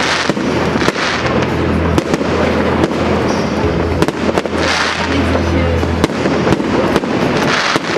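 Fireworks display: a rapid run of sharp bangs and pops with bursts of crackling, over loud music with a steady bass line.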